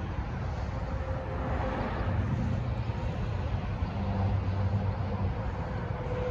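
Steady rumble of distant road traffic, with a faint steady whine over it.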